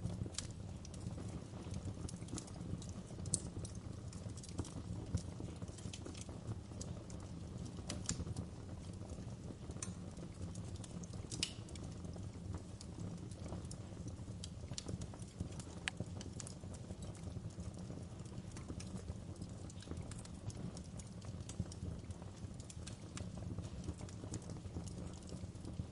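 Wood fire crackling, with irregular sharp pops and snaps over a low, steady rumble of burning logs.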